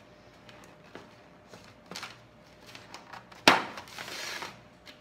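Hands handling a disposable aluminium foil baking pan on a granite countertop. A few faint clicks, then a sharp knock about three and a half seconds in, followed by about a second of crinkling rustle.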